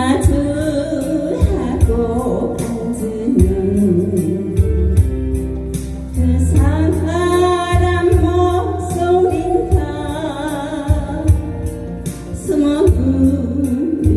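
A singer holding long, wavering notes with vibrato in a Korean pop song, over band accompaniment with a steady beat and bass.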